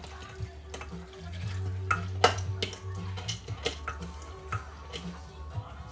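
Metal bowl and spoon clinking and scraping as soaked urad dal is tipped into a blender jar: a string of sharp clicks, the loudest about two seconds in, over background music.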